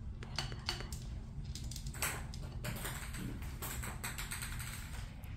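Light, irregular clicks and scratchy rustles from a kitten grooming and shifting in a mesh cat bed, over a steady low hum.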